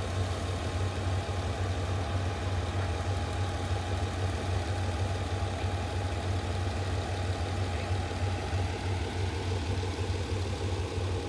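Engine idling steadily, a constant low hum that holds unchanged throughout.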